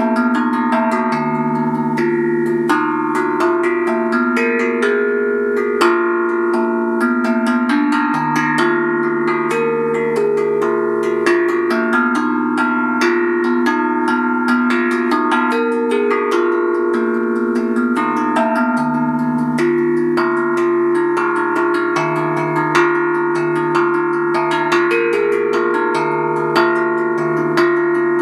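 Handpan (hang drum) played with the fingers: a continuous run of quick struck notes, each ringing on and overlapping the next, over a low note that keeps sounding for several seconds at a time.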